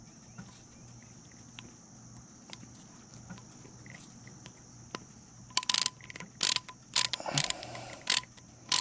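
Ratcheting clicks from a spinning reel's mechanism being worked by hand: faint small clicks at first, then from about two-thirds in a run of loud short clicking bursts, roughly two a second. A steady high-pitched hum sits behind.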